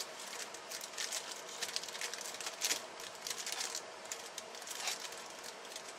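Paper and plastic piston-ring packaging rustling and crinkling as it is handled, with scattered light crackles.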